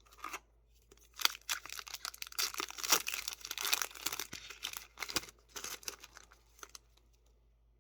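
A Yu-Gi-Oh booster pack's foil wrapper being torn open and crinkled by hand, with a few seconds of rapid crackling and small ticks.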